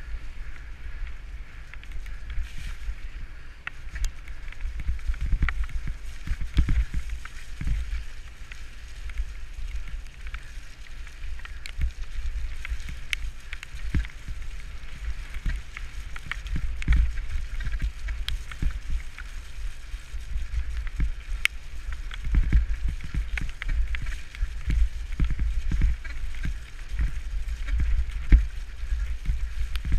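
Wind buffeting the microphone of a camera mounted on a bicycle ridden fast over a rough, muddy dirt track, with a steady tyre hiss and many small clicks and knocks as the bike jolts over the ruts.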